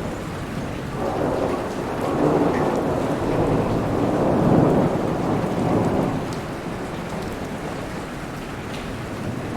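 Steady rainfall with a long roll of thunder that swells from about a second in, peaks midway and fades away by about six and a half seconds.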